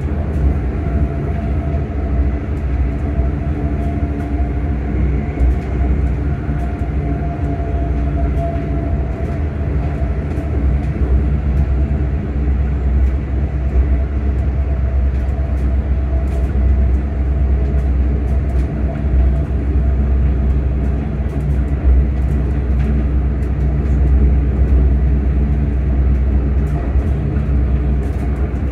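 ScotRail Class 385 electric multiple unit on the move, heard from inside the carriage: a low running rumble with a steady traction motor whine that rises slightly in the first few seconds and then holds. Scattered faint ticks come through.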